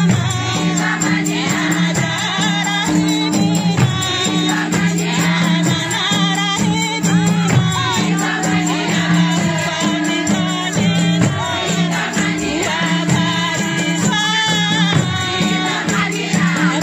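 A group of women singing together in chorus to large jingle-rimmed frame drums beaten in a steady rhythm, over a steady low drone.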